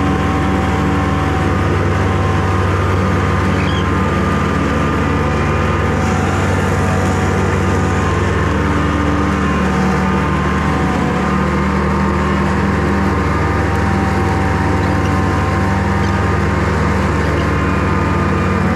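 Riding lawn mower running steadily as it drives and mows through pasture grass, an even engine drone with no change in speed.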